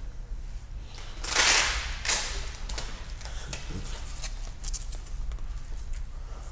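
Hook-and-loop fastening on a waist-trainer corset being pulled apart: a harsh tearing rasp about a second in, a shorter one just after, then faint rustling and small clicks as the elastic straps are handled.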